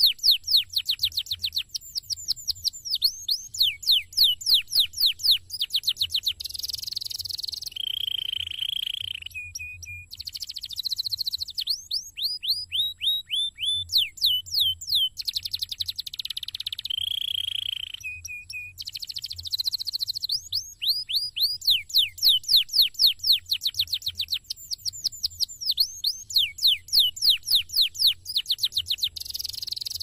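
Male domestic canary singing a long, continuous song: fast rolls of quick descending whistled notes, broken every few seconds by buzzy held notes and harsher chattering phrases.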